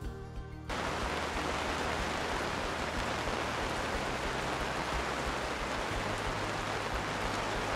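Steady hiss of rain and wind on the microphone, cutting in abruptly under a second in as background music ends.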